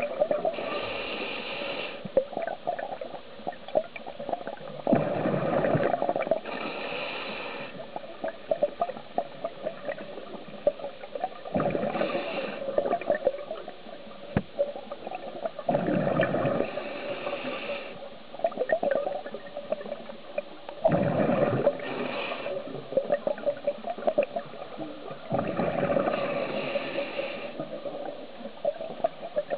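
Scuba diver breathing through a regulator underwater. Each breath brings a hiss and then a gurgling rush of exhaled bubbles, in a regular rhythm of about one breath every five seconds.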